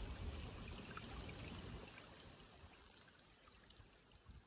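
Soft river water sloshing and trickling around a hand and a Murray cod held by the lip in the shallows for release, with a few small drips. It grows fainter about halfway through.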